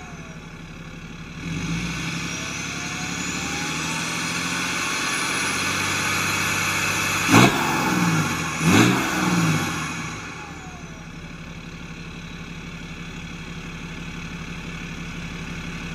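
BMW E91 330d's 3.0-litre straight-six diesel, with the DPF deleted and the standard rear back box still fitted, heard at the twin tailpipes. It idles, is revved up and held, is blipped sharply twice midway with the revs falling back after each, and settles back to idle.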